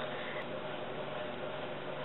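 Steady background hiss with a faint, even hum: room tone with no distinct sound events.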